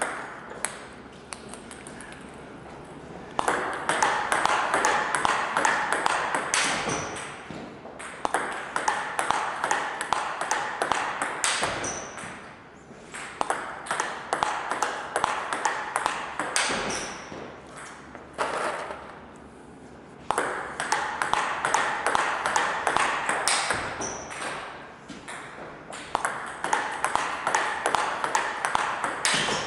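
Table tennis rallies: quick clicks of the ball bouncing on the table and off rubber bats as blocks are fed in. A louder, sharper hit, the forehand smash, comes at or near the end of several of the rallies. The pattern repeats several times with short pauses between.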